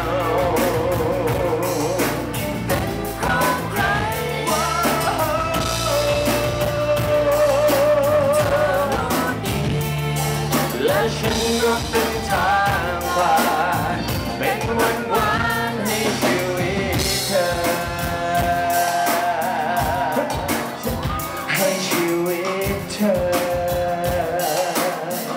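A live pop-rock song: a man singing into a microphone, his held notes wavering with vibrato, over drums, bass and a backing band.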